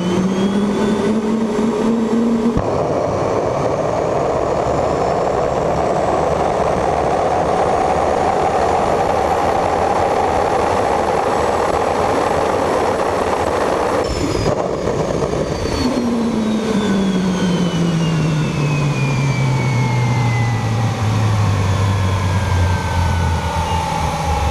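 TS-20B turbine starter spun up by its starter motor with a rising whine, lighting on propane about two and a half seconds in and running with a loud, steady rushing combustion noise. Over the last several seconds its whine falls as the rotor winds down.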